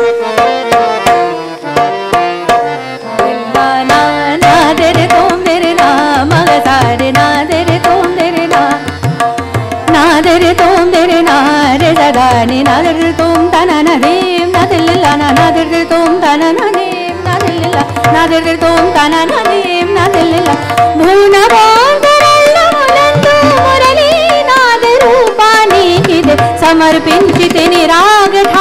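Hindustani classical vocal music: a woman singing long, gliding, ornamented melodic lines over a steady tanpura drone, accompanied by tabla and harmonium. Tabla strokes stand out in the first few seconds, before the voice comes in about four seconds in.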